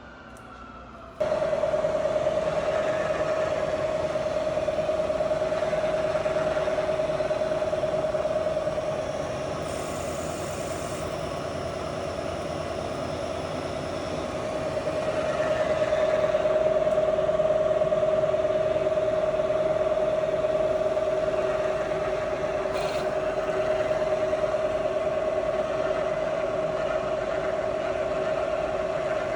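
Bridgeport CNC knee mill running, starting suddenly about a second in with a steady whine over a rushing noise that grows louder and softer as it works.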